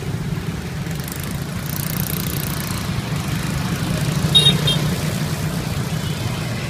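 A motor vehicle engine idling steadily with a low hum, and a short high double chirp about four and a half seconds in.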